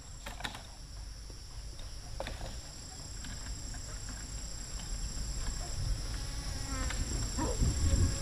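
A steady, high-pitched insect chorus of several unbroken tones, with a few faint clicks and a low rumble that grows louder toward the end.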